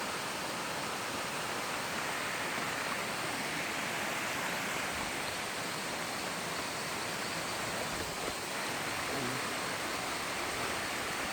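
Steady rushing hiss of water pouring down a waterfall.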